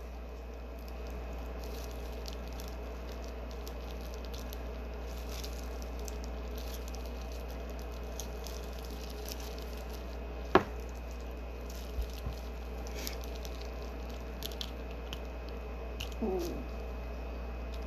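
Boiled shrimp being peeled by plastic-gloved hands: soft wet squishing and small crackles of shell, with one sharp click about ten seconds in. A steady low hum runs underneath.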